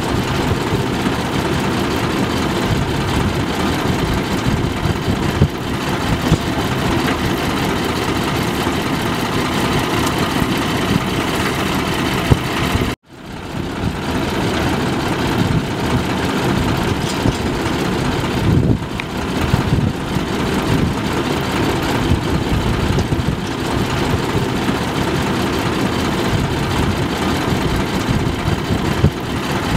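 Tractor-mounted combine harvesters running steadily as they cut a standing grain crop, their engines giving a continuous heavy drone. The sound drops out for a moment about halfway through.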